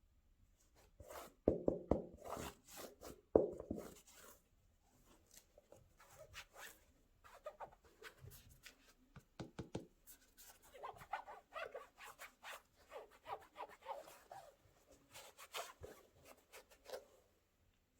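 Packaging being handled by hand: irregular rustling, crinkling and light knocks, with the loudest handling about one and a half and three and a half seconds in.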